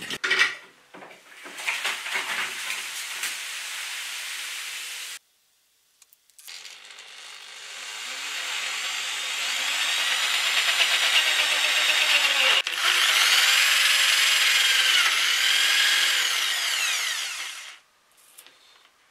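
Power drill spinning an adjustable circle cutter through a watermelon's rind, its pitch sweeping up and down as the speed changes. It starts about six and a half seconds in, builds up, and cuts off sharply near the end, after a few seconds of other noise and a short silence.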